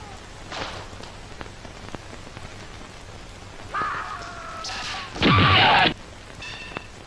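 A dubbed martial-arts blow sound effect: one loud, sharp whack lasting just under a second, about five seconds in. A steady hiss runs under it, and a brief falling tone comes shortly before the hit.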